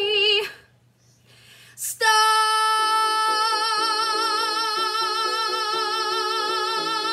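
A woman singing: a phrase ends about half a second in, then comes a one-second pause and a quick breath. From about two seconds in she holds a long high note with vibrato over a piano accompaniment.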